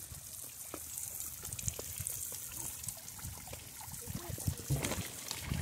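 Water trickling steadily in a pond fed by an artesian well's overflow.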